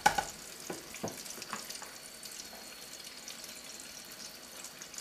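Chicken tenders deep-frying in hot oil near the end of their cooking, as the pieces float up. A steady sizzle is dotted with scattered crackles and pops, with a sharper pop at the very start.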